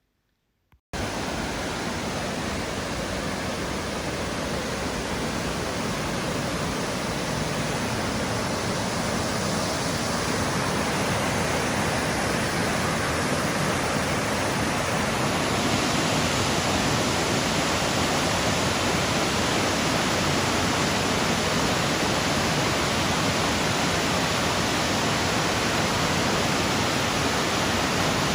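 Steady rush of falling water from the Black Spout waterfall, a 60-metre fall. It cuts in abruptly about a second in and grows a little louder and brighter about halfway through.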